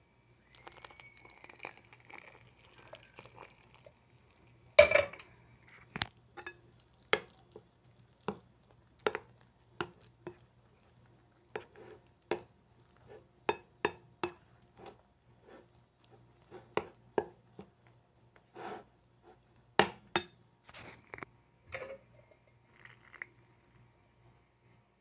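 A metal spoon clinking and scraping against a glass bowl while stirring cassava starch scalded with hot liquid for pão de queijo dough: irregular sharp clinks, one or two a second, after a faint hiss in the first few seconds.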